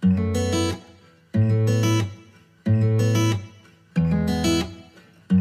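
Background music: a plucked guitar phrase over a bass note, the same short loop starting again about every second and a third.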